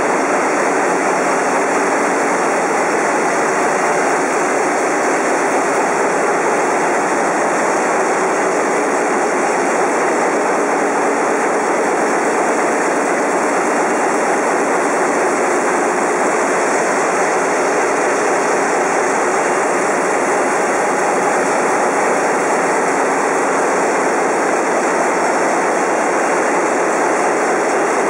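Ship's engine room with its GMT-Sulzer marine diesel engines running: a loud, steady mechanical noise that does not change.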